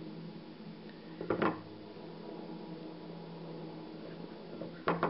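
Light hard knocks as a support spindle is handled and twirled in its brass bowl on a wooden table: a short double knock a little over a second in and another near the end. A steady low hum runs underneath.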